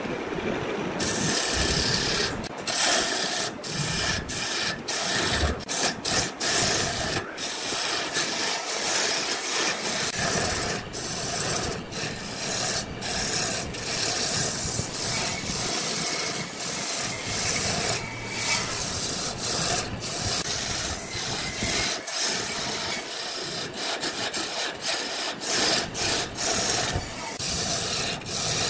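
Wood lathe spinning a glued-up segmented wood blank while a hand-held turning tool cuts into it: a continuous loud scraping, rasping cut. The cut starts about a second in and is broken by many brief gaps.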